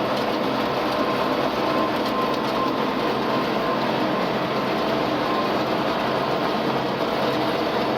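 Tractor running steadily with a Krone KR 130 round baler working behind it: a constant mechanical drone with a steady hum.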